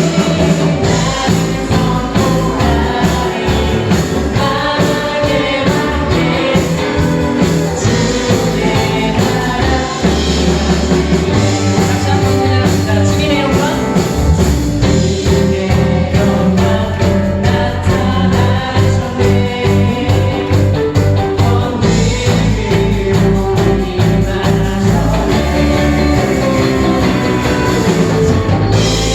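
Worship band playing live, with voices singing a praise song over guitar, bass and drums.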